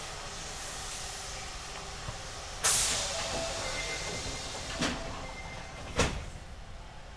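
Osaka Municipal Subway 66 series car standing still, its air system letting out a sudden loud hiss of compressed air a few seconds in that trails off, followed by two sharp knocks.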